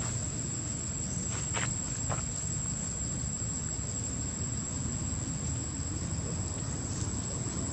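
A steady, high-pitched insect drone over a low rumble of outdoor background noise, with a couple of faint clicks about one and a half to two seconds in.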